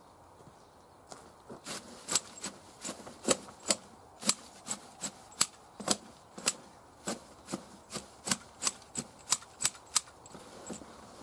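Garden snips cutting in a steady run of sharp clicks, about two or three a second. They start about a second in and stop near the end.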